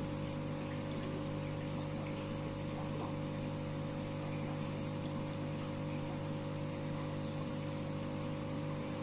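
Aquarium aerator running: a steady hum from the air pump, with air bubbles bubbling up through the tank water.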